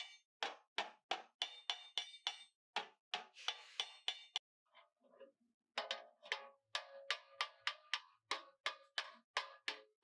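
Hammer blows on sheet metal in quick succession, about three a second, each ringing briefly, with a pause of about a second midway before the hammering resumes.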